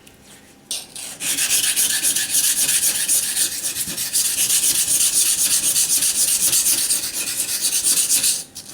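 Knife blade rubbed rapidly back and forth on a wet sharpening waterstone, a fast even rasping of steel on stone, to grind a chip out of the edge. It starts about a second in and stops just before the end.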